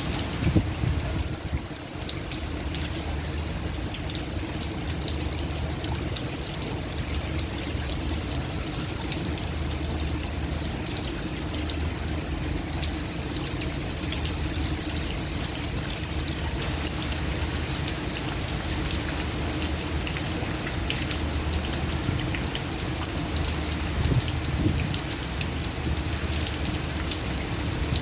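Heavy rain pouring steadily, with the patter of individual drops hitting a surface over a low rumble of strong wind. There are brief louder surges about half a second in and again near the end.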